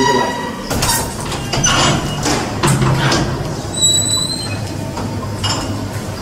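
A door being opened as people walk through: a few knocks and clatters, then a brief high squeak about four seconds in, over a steady low hum.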